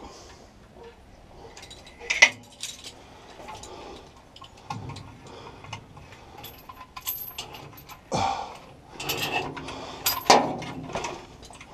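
Intermittent metallic clinks and rattles from hand work with tools and metal parts, with a few louder knocks about 2 s, 8 s and 10 s in.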